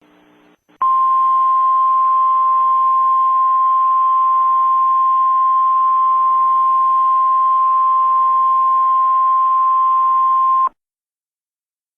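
Emergency Alert System attention signal: a loud, steady single-pitch tone over radio-style static hiss. It starts just under a second in, holds for about ten seconds and cuts off sharply.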